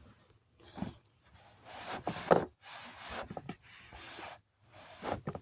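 Toy figures being handled and set in place: a run of short rubbing and scraping sounds, with a sharp knock a little over two seconds in.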